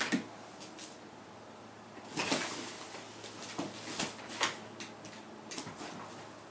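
Nylon-fabric collapsible cat tunnel rustling and knocking as a cat pounces into it and paws at a ribbon wand toy, in short irregular bursts, the loudest about two seconds in.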